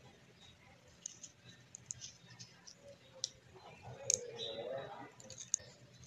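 Faint, scattered small clicks and plastic handling noises of fingers working on an opened electric fan motor's wiring, fitting a tie to hold the wires together.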